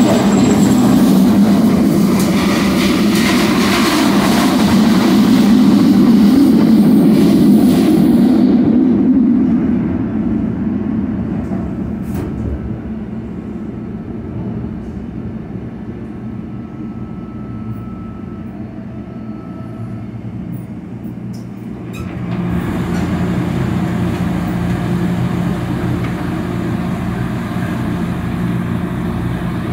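Ride noise of a SEPTA subway-surface trolley, a Kawasaki light rail car, heard from inside the car in the tunnel: a steady rumble of wheels and running gear. It grows quieter and duller about nine seconds in, then gets louder again suddenly about twenty-two seconds in.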